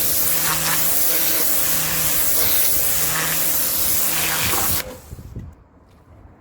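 Kärcher K7 electric pressure washer spraying a jet of water onto patio paving: a loud steady hiss over the hum of its pump motor. The spray and motor cut off suddenly near the end.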